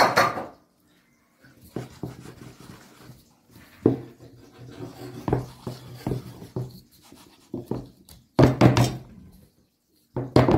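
Round aluminium tray of thick cooked arabaşı dough being shaken and knocked against a wooden cutting board to level it: an irregular series of thuds and knocks, with a loud one at the start and a heavier burst of knocking near the end.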